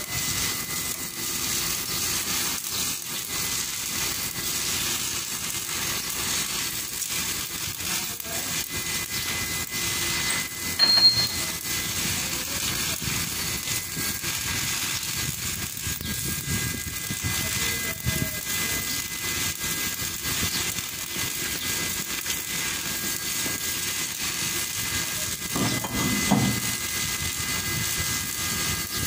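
Steady crackling hiss of stick welding on a loader bucket's teeth, with a sharp loud knock about eleven seconds in.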